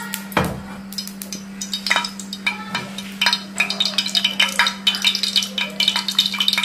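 Cooking oil heating in a frying pan, crackling and spitting. The crackles grow much denser about three seconds in as the oil comes up to frying heat. A steady low hum runs underneath.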